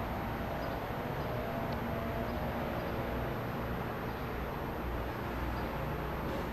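Steady city street background noise: a low, even hum of distant traffic.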